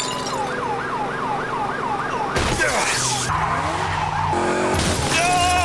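Cartoon sound effects: a rapid falling siren-like warble, about four a second, for the first two seconds. Then a sudden rush of noise and a vehicle's tyres spinning and skidding, over steady low tones.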